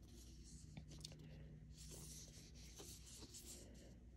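Near silence with faint, scratchy rustling and a few soft ticks.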